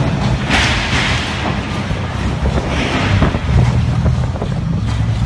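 Steady low rumble of a cruise ship moving close alongside a pier, with water churning at the hull and wind buffeting the microphone in brief gusts.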